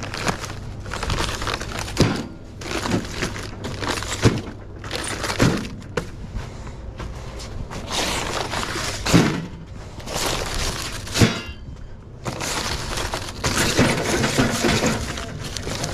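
Shrink-wrapped 24-packs of plastic water bottles being lifted and stacked: the plastic wrap crinkles and crackles in spells, with several thuds as the cases are set down.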